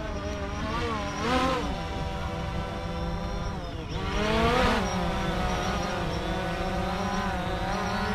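A motor running steadily over a low rumble, its pitch swelling up and back down briefly about a second in and again around four and a half seconds in.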